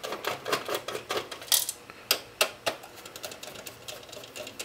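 Irregular small clicks and ticks of a precision screwdriver working security Torx screws out of a cable box's casing, with a few sharper clicks about halfway through as the box and screws are handled.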